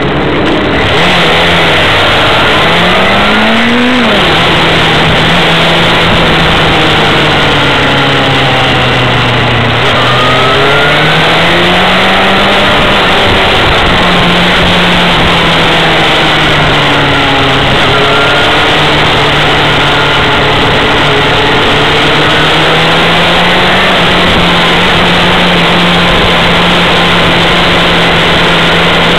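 Yamaha FZ6 N's stock 600 cc inline-four engine accelerating, its pitch climbing steeply and dropping sharply with an upshift about four seconds in, then rising and falling through the gears. A heavy rush of wind on the onboard microphone runs under it.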